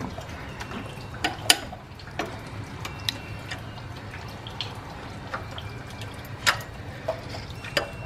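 Ratchet wrench clicking and metal-on-metal clinks while loosening the bolts of a car engine's front bracket, in irregular sharp ticks with a couple of louder clinks, over a steady low hum.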